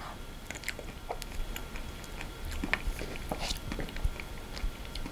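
Close-miked mouth sounds of eating mint chocolate chip ice cream off a metal spoon, with scattered small clicks of the spoon against the teeth and the paper cup.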